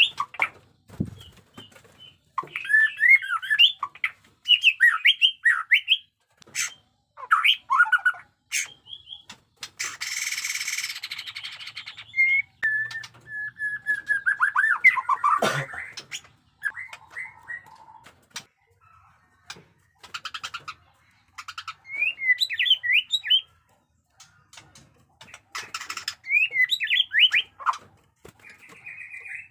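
White-rumped shama singing in short bursts of varied, rapidly gliding whistles with silent gaps between them. About ten seconds in comes a harsh rasping noise lasting about two seconds, and sharp clicks are scattered through.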